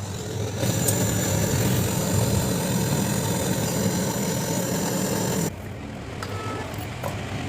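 A motor-driven machine running steadily, with a low hum and a high whine. It starts about half a second in and cuts off suddenly after about five seconds, leaving a quieter hum.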